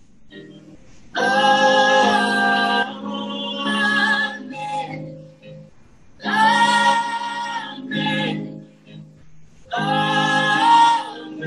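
A woman singing a worship song in phrases of about one and a half to two seconds, with short breaks between them.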